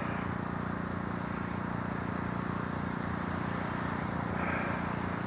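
Steady low hum of an idling engine over constant background noise.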